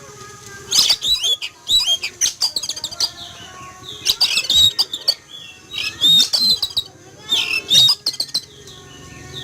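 Oriental magpie-robin (kacer) singing loudly in bursts of quick chirps, whistles and harsh notes, with short pauses between the bursts.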